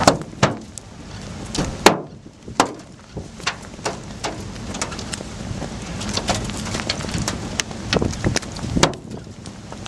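Scattered heavy raindrops striking close to the microphone as irregular sharp taps, several loud ones among many faint, over wind rumbling on the microphone.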